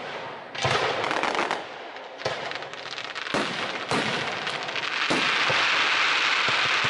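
Aerial fireworks shells going off in a rapid string of sharp bangs about a second apart, running from about five seconds in into a dense, continuous crackle.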